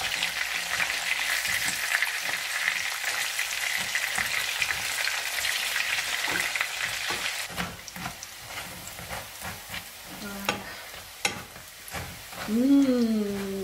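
Breaded chicken pieces sizzling as they shallow-fry in hot fat in a nonstick pan, with sharp clicks of tongs against the pan as the pieces are turned. The sizzle drops away after about seven and a half seconds. Near the end comes a short hummed voice sound, rising and then falling.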